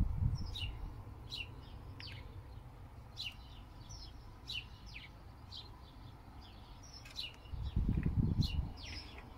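Small birds chirping, many short falling calls one after another. A brief low rumble about eight seconds in is the loudest thing.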